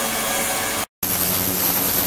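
Ultrasonic cleaning tank running in water: a steady hiss and hum. It cuts out abruptly just before the middle and resumes as a different steady noise with a high whine on top.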